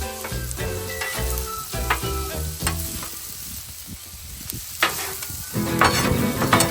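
Ground beef patties sizzling on a Blackstone flat-top steel griddle. Several sharp metal scrapes and clacks come near the end, in keeping with a spatula chopping up the crusted meat.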